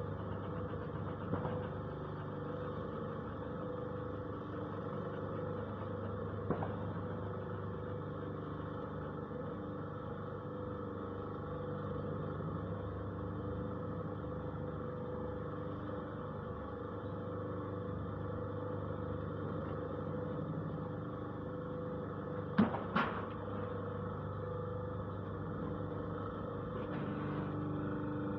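Paving block press machine running with a steady mechanical drone, broken by a few sharp knocks, two of them close together near the end.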